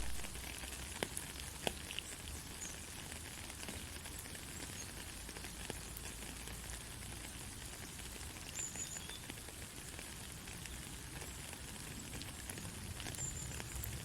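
Soft rain falling steadily: an even, fine patter with a few sharper drop ticks in the first two seconds.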